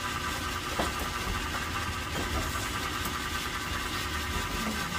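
Steady mechanical hum of a running motor, even and unchanging, with a faint tap about a second in.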